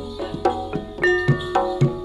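Instrumental gamelan-style music: struck metal notes ringing on, with a few deep hand-drum strokes in the second half, over a steady low hum.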